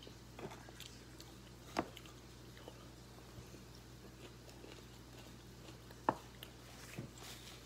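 Someone chewing and biting food: scattered small wet clicks and crunches, with sharper ones about two seconds in and about six seconds in, over a low steady hum.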